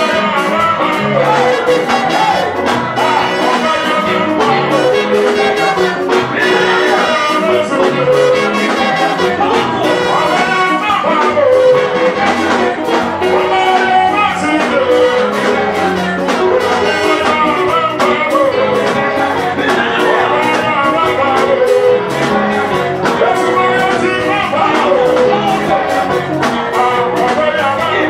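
Loud, lively Pentecostal praise music with a fast, steady beat and a melody line that runs without a break.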